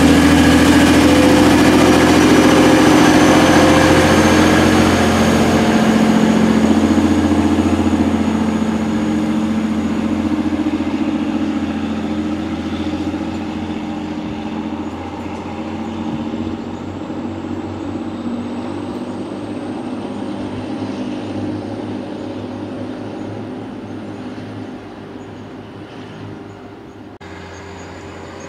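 Class 185 diesel multiple unit pulling away, its engines running hard under power with a faint high whine that slowly rises in pitch, the sound fading steadily as the train draws away.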